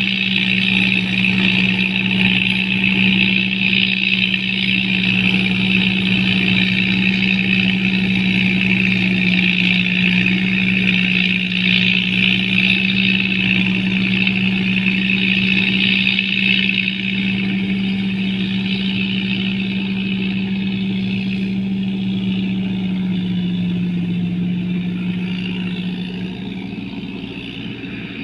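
Combine harvester running steadily: an engine hum under a loud, even hiss. The level drops slightly about two-thirds of the way through, and the engine note dips a little as the sound fades near the end.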